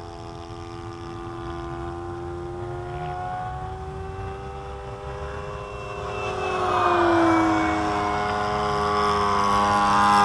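Four-stroke glow engine of an RC P-51 Mustang, a Thunder Tiger 91FS, running in flight. It swells and its pitch slides down as it passes about seven seconds in, then grows louder again near the end.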